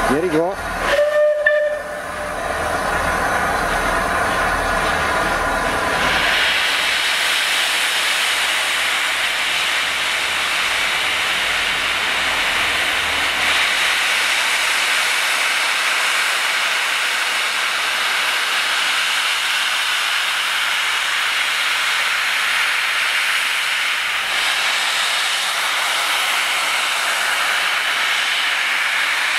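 Steam locomotive 34046 Braunton, a rebuilt Bulleid West Country class Pacific, standing and blowing off steam: a loud, steady hiss sets in about six seconds in and keeps on. Before it comes a steady pitched hum, with a brief rising tone at the very start.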